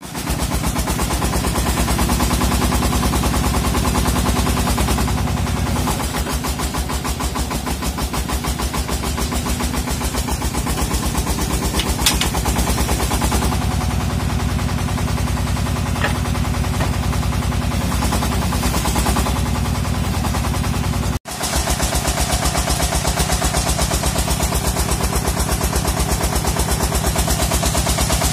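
Engine of a water-well drilling machine running steadily with a rapid, even pulse. It drops out for an instant about three quarters of the way through.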